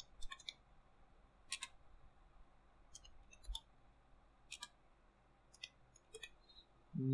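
Computer keyboard being typed on: single key presses, unevenly spaced, making about a dozen light clicks as a line of G-code is entered.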